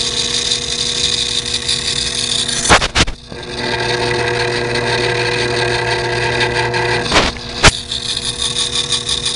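Small bench lathe running, turning a model locomotive axle and wheel with a steady motor whine. Sharp clicks come about three seconds in and again near eight seconds, and the whine's tone shifts after the first.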